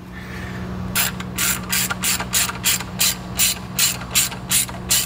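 Ratchet driving a Torx 20 bit to tighten a screw: a regular run of pawl clicks, about three a second, starting about a second in.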